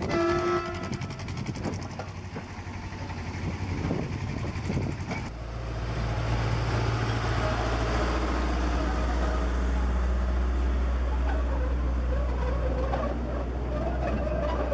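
About five seconds in, the steady low drone of a small narrow-gauge field railway diesel locomotive starts, heard from the open passenger wagons it is pulling, with riders' voices faintly over it. Before that, mixed machinery noise with a short pitched tone at the start.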